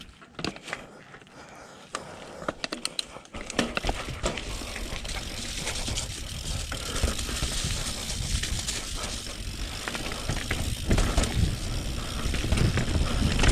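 YT mountain bike riding down a dirt singletrack: tyres on dirt and rocks, frame and chain rattling, and wind rushing over the microphone. A few separate clicks and knocks come as the bike sets off, then the rushing and rattling grow louder as it picks up speed.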